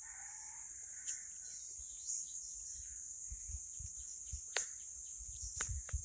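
A rooster crows faintly during the first second, over a steady high-pitched drone of insects. A few short, sharp bird chirps come at intervals through the rest.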